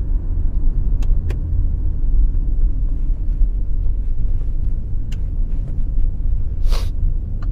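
Hyundai car driving slowly and turning, with steady road and engine rumble heard inside the cabin and a few sharp clicks. These are the rear-end creaks that come whenever the steering is turned, which the mechanic takes for something loose at the back.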